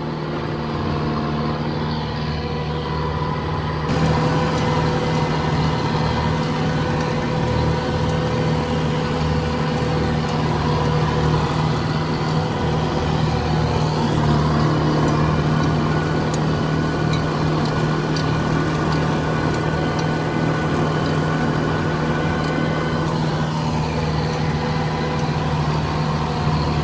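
Tractor engine running steadily in third gear while mowing wet grass, getting louder about four seconds in, with the mower's whir under the engine note.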